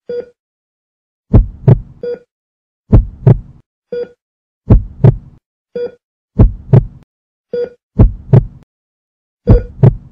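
Slow heartbeat sound effect: six double 'lub-dub' thumps about every 1.6 s. A short, faint pitched blip falls between the beats.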